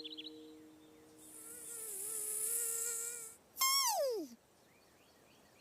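Cartoon-style sound effects: an insect-like buzzing hiss with a wavering tone for about two seconds, then a loud whistle-like tone that slides steeply down in pitch over under a second.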